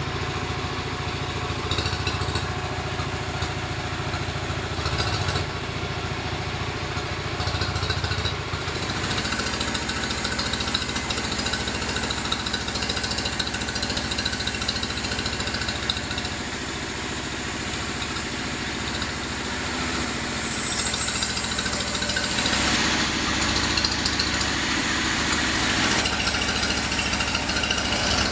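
Engine-driven sawmill machinery running steadily with a low drone. About twenty seconds in the sound grows louder and hissier for several seconds.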